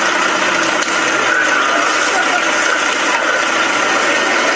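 A large fire burning with a steady, dense rushing noise and a few faint crackles.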